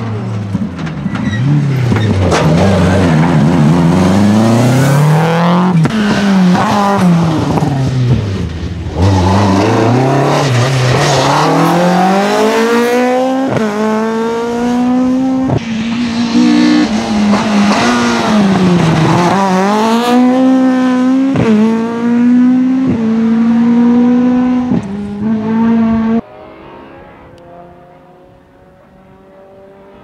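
Rally cars driven hard on a tarmac stage, one after another: first a Subaru Impreza, then a Mk2 Ford Escort. Each engine climbs in pitch through a gear and drops at every upshift or lift. Near the end the sound suddenly falls to a faint, distant engine.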